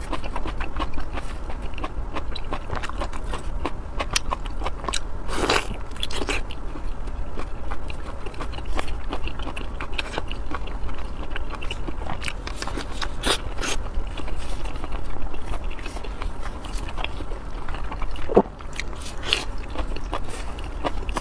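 Close-miked eating: continuous chewing and wet mouth smacks with many small clicks, and a few louder smacks about five, thirteen and eighteen seconds in.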